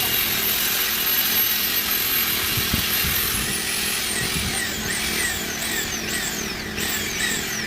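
A handheld power tool running steadily, the kind used to sand or polish a headlight lens. A thin high whine fades out about three and a half seconds in, and a run of quick falling high-pitched sweeps follows.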